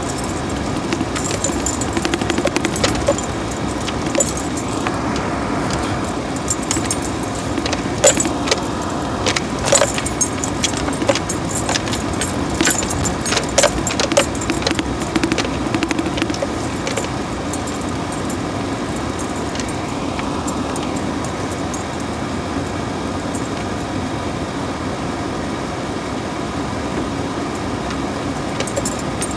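Cabin noise of a vehicle driving over a rough dirt trail: a steady low road rumble with frequent rattles and clicks, busiest in the first half and easing off later.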